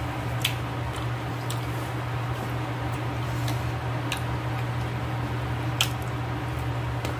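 Close-miked chewing of soft stewed meat and vegetables: a few sharp wet mouth clicks and smacks about a second apart, the loudest near the end, over a steady low hum.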